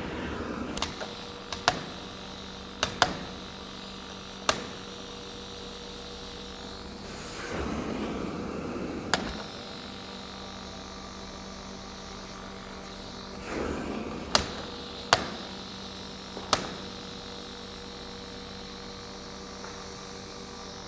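The electric blower of a pneumatic ball-tube exhibit runs with a steady hum. Plastic balls knock through the flexible plastic tubes, making sharp clacks scattered throughout, and there are a few short swells of rushing noise.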